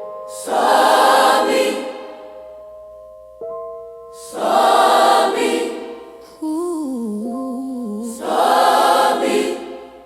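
Slow gospel-blues music without lyrics: three swelling chords about four seconds apart, with held notes between them. A wavering melodic line comes in about six seconds in.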